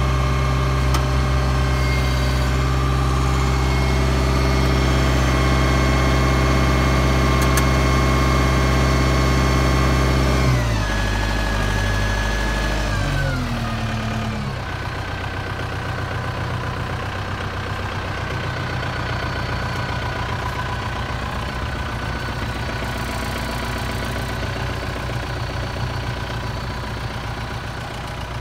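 Kubota M7040 tractor's four-cylinder diesel engine running steadily at raised speed, then throttled back about ten seconds in, its pitch and level falling over a few seconds to a steady, lower idle.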